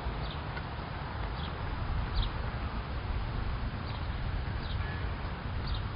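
A bird repeating short, high, downward-sliding chirps about once a second, over a steady low rumble.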